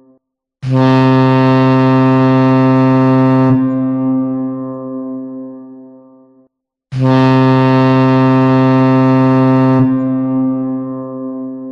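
Deep ship's horn sounding two long blasts, each held steady for about three seconds and then dying away over several seconds; the same blast repeats.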